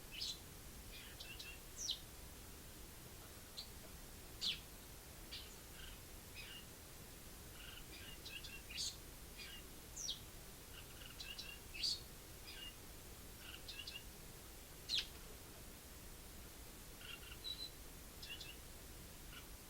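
Eurasian tree sparrow singing: a loose series of short, high chirps and twitters at irregular intervals, with a few louder sharp chirps standing out, over a faint steady hiss.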